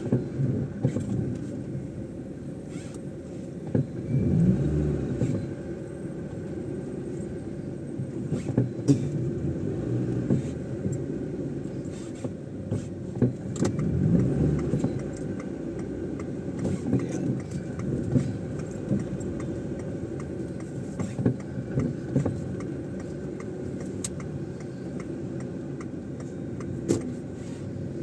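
Car driving through city streets: a steady low road-and-engine rumble that grows louder twice, about four and fourteen seconds in, with scattered short rattles and knocks.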